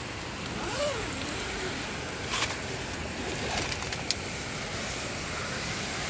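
Steady rush of a waterfall pouring over rock ledges into pools, with two brief clicks about two and a half and four seconds in.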